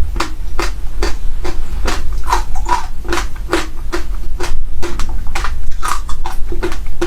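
Close-miked chewing of passion fruit seeds: sharp, crisp crunches, about two a second, as the seeds crack between the teeth.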